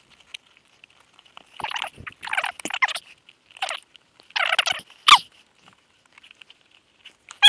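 Rubber intake boots on a Gilera Nordwest squeaking and creaking against the carburettor inlets as they are pulled and worked into place, in about half a dozen short, irregular bursts, one with a sliding squeal about five seconds in.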